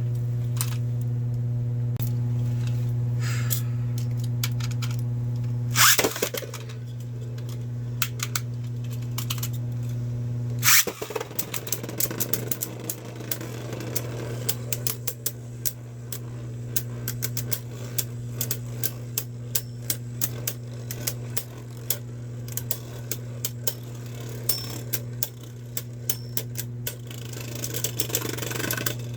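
Beyblade Burst spinning tops launched into a plastic stadium with two sharp loud snaps, then clattering and clicking rapidly as they spin and knock into each other and the stadium walls.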